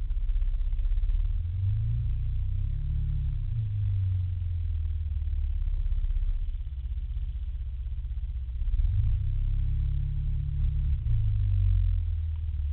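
Small scooter engine running, its pitch rising twice under throttle, about two seconds in and again about nine seconds in, and easing back each time.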